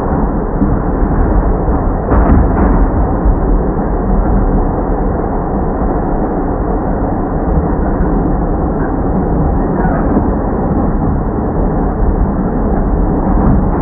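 NYC subway train running, a loud steady low rumble with brief metallic clanks about two seconds in and again near the end.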